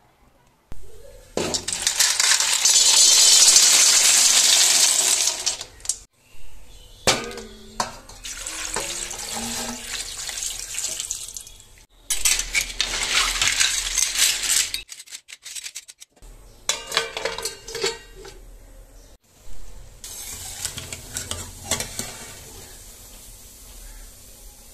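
Water splashing and river snail shells clattering in a metal kadai, in several short clips. From about 20 seconds in, a quieter steady sound of the water with the snails in it boiling.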